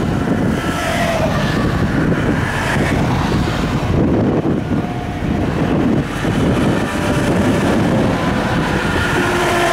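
Highway traffic passing close by: semi trucks and cars going past at speed, a steady rumble with tyres hissing on wet pavement. Now and then a faint engine or tyre tone drops in pitch as a vehicle goes by.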